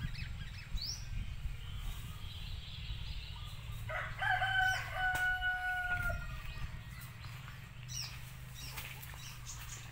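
A rooster crowing once, a single call of about two seconds that starts about four seconds in, over a steady low hum.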